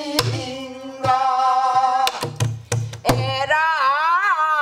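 A woman sings pansori in long held notes that waver up and down near the end. She accompanies herself on a buk barrel drum: a few sharp cracks of the stick on the wooden shell and deep thumps on the drumhead, mostly bunched about two to three seconds in.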